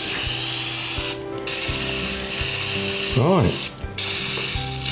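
Aerosol can of oven cleaner spraying into the engine's cylinder bores in three hissing bursts, with short breaks about one second and about four seconds in, soaking the carbon deposits to de-coke them.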